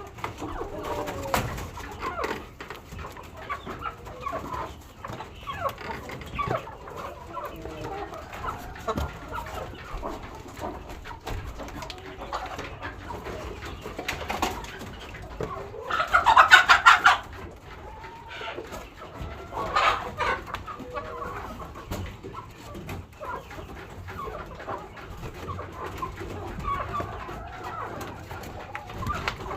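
A flock of free-range chickens clucking steadily, with one loud, drawn-out call lasting about a second near the middle and a shorter loud call a few seconds after it.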